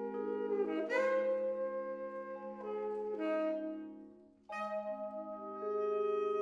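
Slow ballad played by vibraphone and saxophone: sustained, ringing chords that fade almost away about four seconds in, then a new chord is struck and held.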